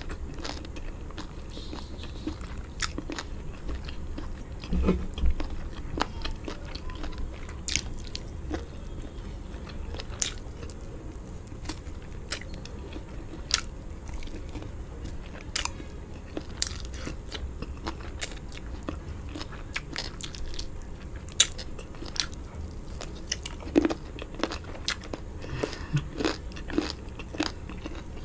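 Close-miked chewing and biting of someone eating chicken drumstick and rice with palava sauce by hand: irregular wet smacks and sharp mouth clicks.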